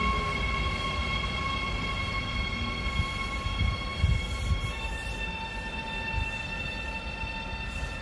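Electric locomotive pulling away with a rake of double-deck coaches: a steady electric whine of several tones from its traction drive over a low rumble of wheels on rail. The whine steps to a new, slightly lower set of pitches about five seconds in, and the sound fades slowly as the train moves off.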